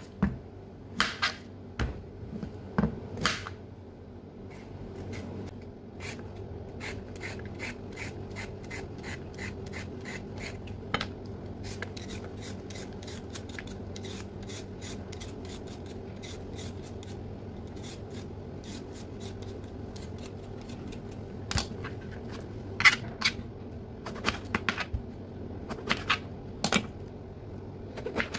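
Hand-held vegetable peeler scraping over a potato in quick repeated rasping strokes; near the end a few louder knocks as a knife cuts through an eggplant onto the board. A faint steady hum runs underneath.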